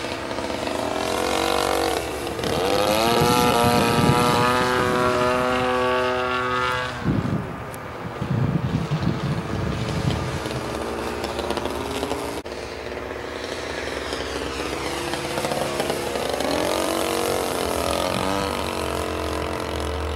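Model airplane's engine running through aerobatics, its pitch gliding up and down as the plane passes and the throttle changes. It is loudest a few seconds in, cuts back sharply about seven seconds in, and builds again near the end.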